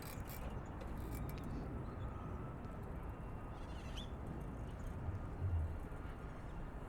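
Steady low rumble of outdoor background noise while riding a bicycle along a street, with a few faint ticks and a short low hum about five seconds in.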